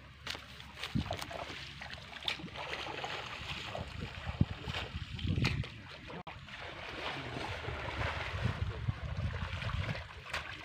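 Shallow pond water splashing and sloshing as a seine net is hauled in by people wading, with a few sharp knocks and a low rumble underneath.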